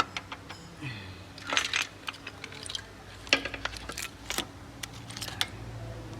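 Metal engine parts and tools clinking and knocking in a few short, separate strikes while the intake camshaft is taken out of the cylinder head.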